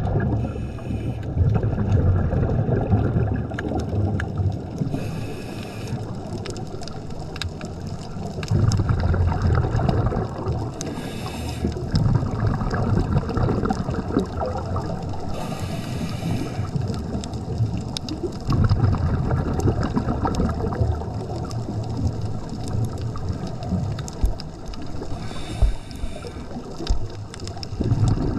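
Scuba diver breathing through a regulator underwater, five breaths: each is a short hiss on the inhale, followed by a longer low gurgling rush of exhaled bubbles.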